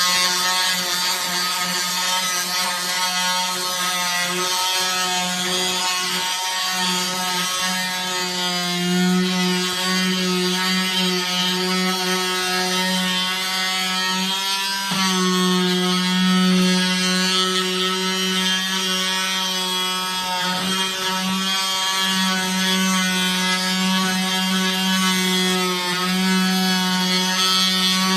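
Cordless oscillating multi-tool running continuously with a steady pitched hum. The hum breaks off briefly about halfway through and picks up again.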